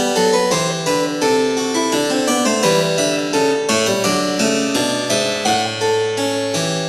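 Background music: a keyboard piece with quick, evenly paced plucked notes in a harpsichord-like timbre.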